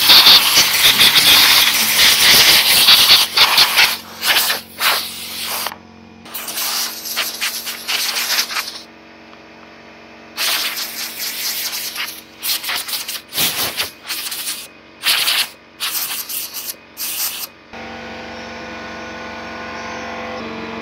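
Compressed air from a blow gun blasting dust and debris off a chainsaw: one long continuous hiss for the first few seconds, then a string of short blasts switched on and off.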